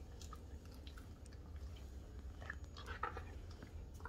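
A Siberian husky eating peanut butter: faint wet smacks and clicks of the mouth as she licks and chews, growing denser about two and a half to three seconds in, over a low steady hum.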